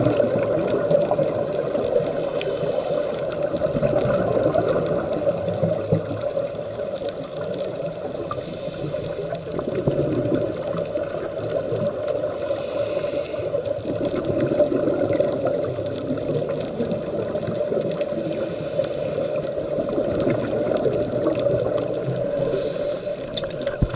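Underwater sound of a scuba dive heard through an action camera's waterproof housing: a steady water rumble, with the diver's regulator breathing coming through as a rush of bubbling noise about every five to six seconds.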